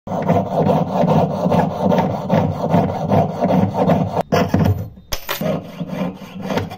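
Jeweller's piercing saw cutting a strip of brass sheet on a wooden bench pin, in quick back-and-forth rasping strokes. The strokes break off briefly a little past halfway, then carry on more sparsely.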